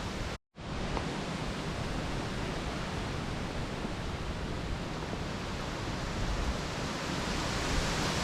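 Wind blowing steadily over the microphone and through the woods, a constant hiss with low buffeting that grows stronger near the end. The sound cuts out completely for a moment about half a second in.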